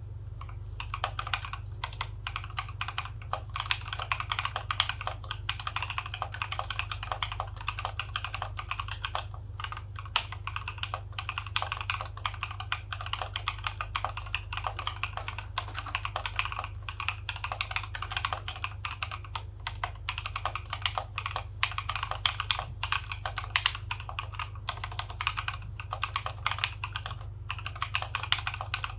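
Continuous typing on a mechanical keyboard fitted with stock Alpaca V2 linear switches, an FR4 plate and PBT keycaps: a quick, uneven run of keystrokes starting about a second in, over a steady low hum.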